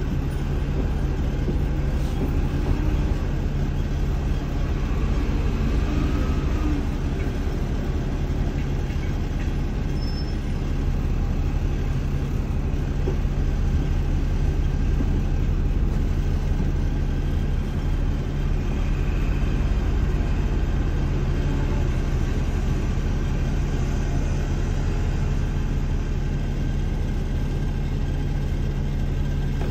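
Steady cabin noise inside a hydrogen fuel-cell double-decker bus: a continuous low hum from its drive and machinery, with no marked changes.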